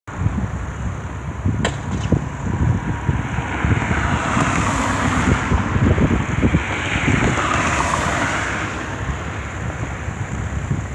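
Wind buffeting the microphone, with a broad rushing noise that swells in the middle and fades again, and two faint clicks about two seconds in.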